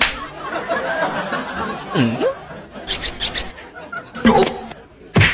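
Laughter and snickering, with a sound that dips in pitch and rises again about two seconds in, and a sharp slap near the end.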